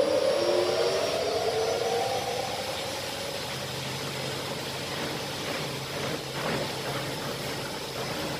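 SPEED3300 carpet spinner's 3 HP motor and drum spinning up: a whine rising in pitch that fades over the first few seconds, giving way to a steady whirring rush with a low hum.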